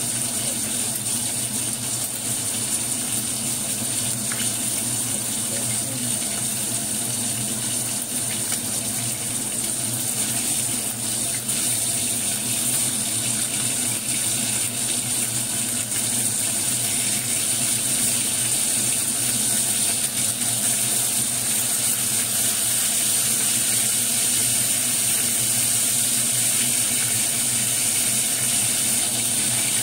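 Fish pieces frying in hot oil in a pan: a steady sizzling hiss that grows a little louder about halfway through.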